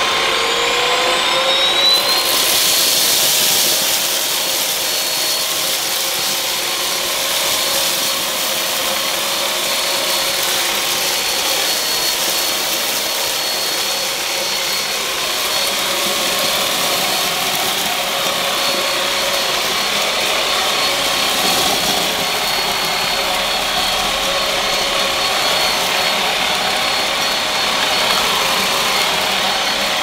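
Hosome 22.2 V cordless stick vacuum running, its motor whine rising in pitch over the first couple of seconds and then holding steady with a loud rush of air. Its motorised floor head is pushed back and forth over wiry carpet, sucking up rice, porridge oats and cornflakes.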